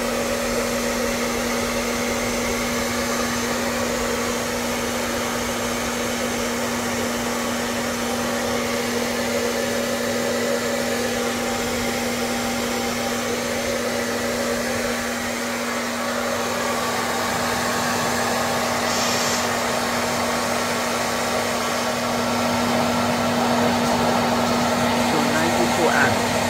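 A 2200 W hair dryer running steadily with a constant hum while it draws about 2.5 kW, a heavy load on a 24 V LiFePO4 battery bank through a hybrid inverter.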